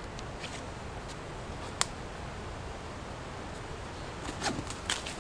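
A canvas backpack being fastened by hand: faint fabric rustling and strap handling, with one sharp click a little under two seconds in. Toward the end come a few quick scuffs and clicks, over a steady quiet background hiss.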